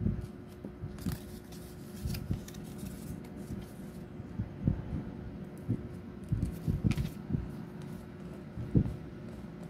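Folded paper being handled: light rustling and crinkling of the card, about a second in and again near 7 s, among soft taps and knocks of hands and a small glue bottle, over a faint steady hum.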